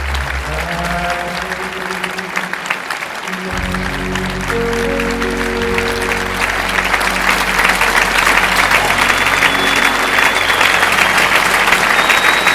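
Audience applauding over the closing music, the applause swelling louder in the second half while sustained music notes carry on underneath.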